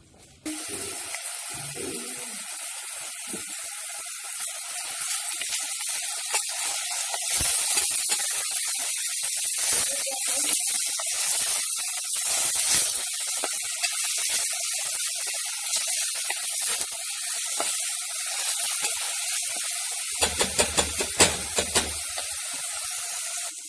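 Diced onion sizzling in olive oil in a stainless steel pot: a steady frying hiss full of crackles, the onion being fried until golden. It starts about half a second in, and near the end a few sharp knocks come from the wooden spoon stirring against the pot.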